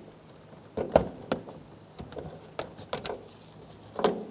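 Plastic push-pin clip on trunk interior trim being pried up and pulled out by hand: a handful of scattered small clicks and knocks, the loudest about a second in and near the end.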